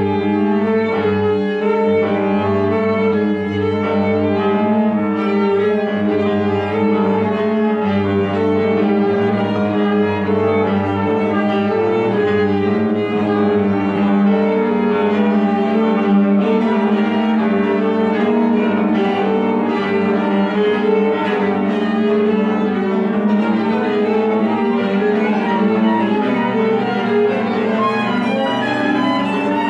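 Chamber quintet of flute, clarinet, violin, cello and piano playing live classical music. The bowed cello and violin are prominent in a dense texture of held notes.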